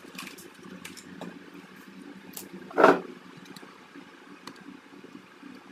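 Workbench handling noise: small clicks and taps as hands pick up and handle an adhesive tube, with one louder brief handling sound about three seconds in, over a steady low hum.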